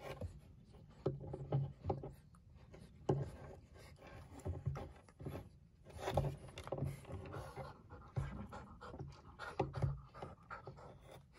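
A puppy panting in short, uneven bursts.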